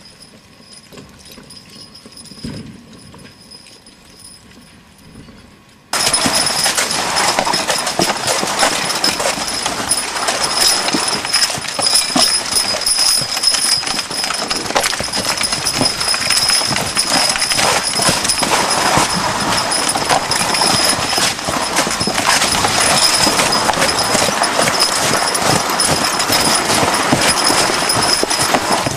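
A team of two draft horses pulling a rig: hooves clopping with harness and the vehicle rattling. Faint and distant for about the first six seconds, then loud and close, heard from behind the team.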